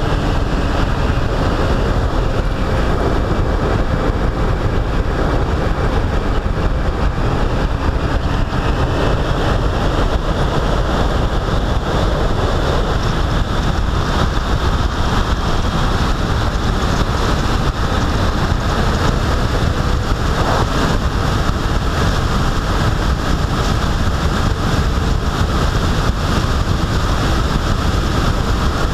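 Steady wind rush and road noise from a vehicle driving along a sealed road at speed, with wind buffeting the camera's microphone.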